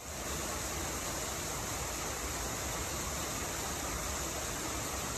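Steady rushing of running water: a shallow stream with a small waterfall spilling from its stone bank wall.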